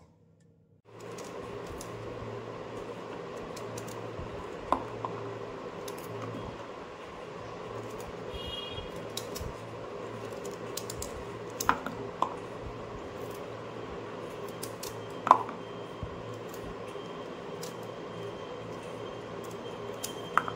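Small knife clicking and scraping as spiny gourds are trimmed by hand, with a few sharp taps and cut pieces dropping into a bowl of water, over a steady background hum.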